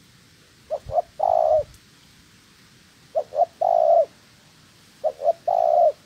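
Spotted dove cooing three times, about two seconds apart. Each coo is two short notes followed by one longer held note.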